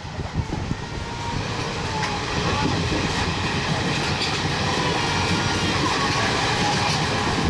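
Train running on the rails: a steady rumble and rattle of wheels on track that grows louder over the first couple of seconds and then holds, with faint thin squealing tones above it.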